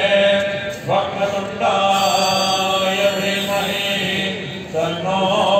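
Hindu aarti hymn in Sanskrit, chanted to a melody, with a steady low drone beneath.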